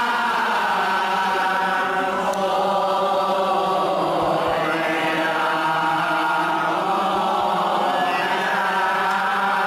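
A group of voices chanting an Assamese devotional hymn, singing long drawn-out notes that slide slowly up and down in pitch.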